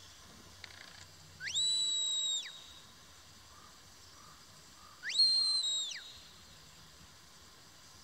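A sheepdog handler's whistle commands to a herding dog working sheep: two long, high whistles, each swooping up, held steady for about a second, then sliding back down. The second whistle steps down slightly in pitch before it falls.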